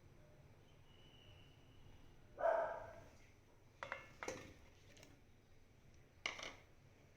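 A few sharp clinks and knocks of kitchen utensils or dishes, spaced about a second apart, after a louder short sound about two and a half seconds in.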